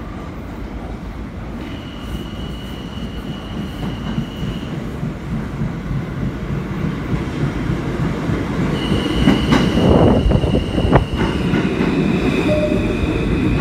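R160 subway train pulling into the station: a rumble that grows steadily louder as it approaches, with a high, steady squeal heard twice. About ten seconds in there is a loud rush as the lead cars pass close by.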